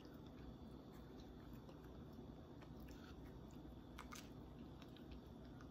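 Faint mouth sounds of a person biting into and chewing a raw pineberry, with a soft click about four seconds in; otherwise close to silence.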